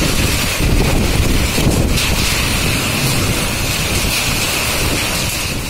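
Heavy rain mixed with hail pelting the ground and the house: a dense, steady hiss and patter, with wind buffeting the microphone.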